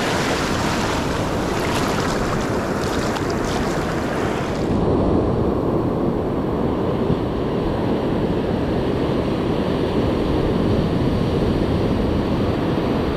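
Ocean surf washing up the beach, the foaming whitewash hissing. About five seconds in the sound turns duller and lower, with wind rumbling on the microphone.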